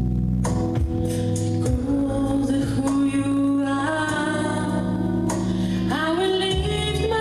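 A woman singing a worship song into a microphone over sustained keyboard chords, her sung line coming in about three seconds in.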